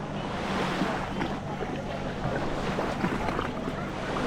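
Beach ambience: small waves washing on the sand, with wind buffeting the microphone and a low steady hum underneath.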